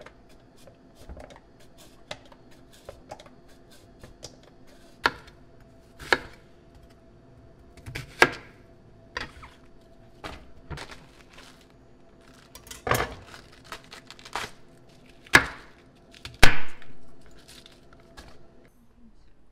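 Vegetables being cut by hand: a kitchen knife knocking on a bamboo cutting board in irregular sharp strokes as a cabbage is cut, with lighter scraping of a peeler on a carrot at the start. A few strokes are much louder, the loudest a few seconds before the end, over a faint steady hum that stops shortly before the end.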